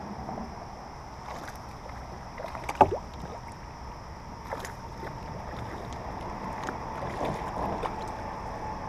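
A hooked bass thrashing and splashing at the surface beside a kayak as it is reeled in, with one sharp, loud smack about three seconds in and smaller splashes after.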